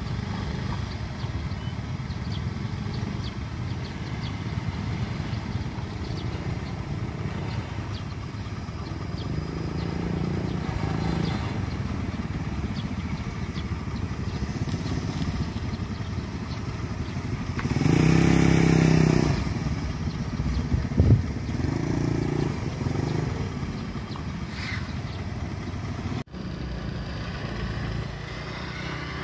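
Motorcycle engines idling and road traffic running steadily. About two-thirds of the way through, a louder vehicle passes close for a couple of seconds, followed shortly by a brief sharp knock.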